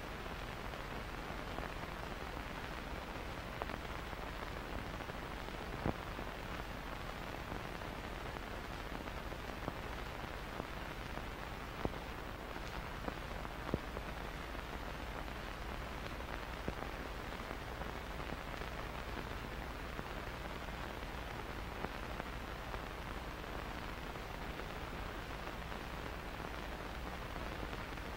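Steady hiss with a few faint scattered clicks: the background noise of an old film soundtrack.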